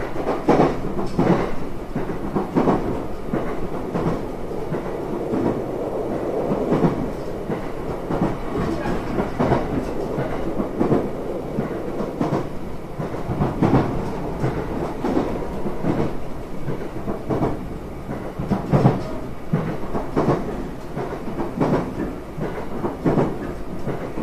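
Running noise inside a JR West 227 series 1000 electric train at speed: a steady rumble of the wheels on the rails, broken by irregular clacks as the wheels pass over rail joints.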